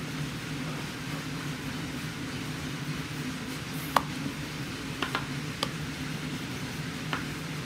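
Wooden rolling pin rolling out dough on a wooden board, with a few sharp knocks of wood on wood about four, five and seven seconds in, over a steady low hum.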